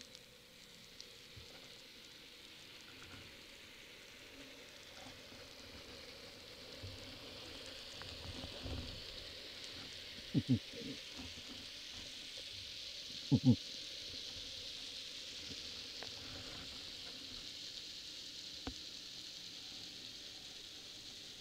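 Steady underwater crackling hiss picked up by a submerged camera over a seagrass bed. Two brief pairs of low knocks come in the middle.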